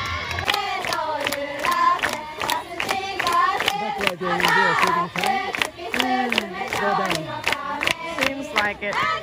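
Several women's voices shouting and calling out over one another, lacrosse players and their bench cheering and calling during play. Frequent sharp clicks are mixed in.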